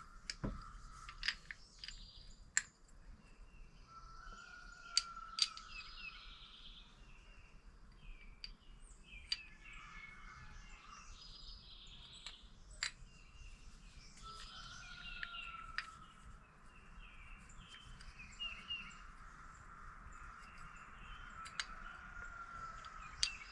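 Faint birdsong of chirps and short whistled phrases over a quiet background, with a few sharp single clicks from scooter variator parts being handled and test-fitted.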